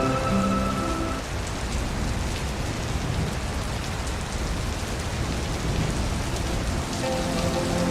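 Steady rain falling into a puddle, with a low rumble of distant thunder beneath it. A soft sustained musical tone fades out about a second in and comes back near the end.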